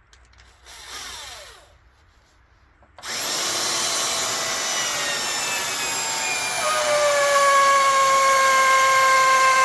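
Electric drill driving a 10-inch HeadLok timber screw into a wooden beam: a short burst about a second in, then from about three seconds the drill runs steadily, its whine slowly dropping in pitch as it loads down.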